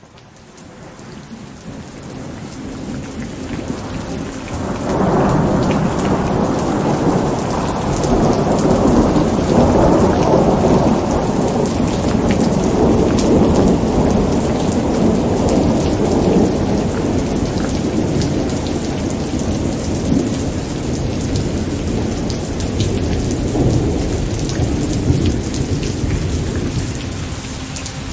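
Steady rain pattering on a surface with a long rolling thunder rumble. The sound rises from quiet over the first few seconds. The rumble swells about five seconds in, stays heavy through the middle and slowly fades away near the end.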